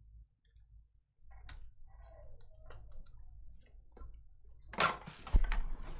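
Small clicks and taps of a trading card and a clear plastic card box being handled on a tabletop mat, with a louder rustle and one sharp knock near the end.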